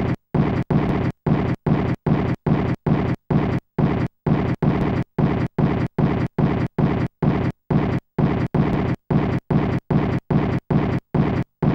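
A steady, machine-regular rhythm of short, deep bursts of noise, about three a second, each cut off abruptly with silence between.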